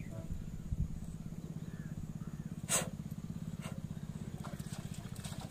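An engine running steadily at idle with an even low throb, and a single sharp clank about two and a half seconds in.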